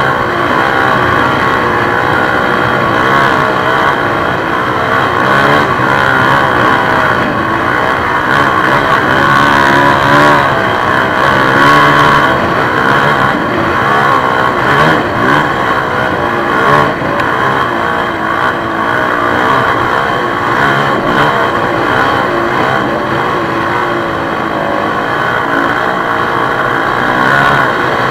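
Honda CRF450X's single-cylinder four-stroke engine running continuously while ridden, its pitch rising and falling with the throttle.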